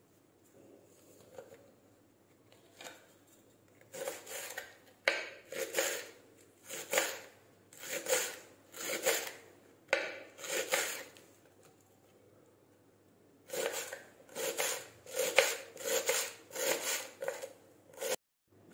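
Kitchen knife chopping green garlic stalks on a cutting board: a series of separate chops about one a second, a short pause, then a faster run of chops near the end.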